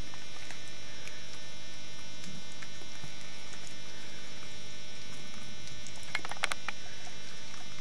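Steady electrical mains hum throughout, with a short cluster of faint clicks about six seconds in.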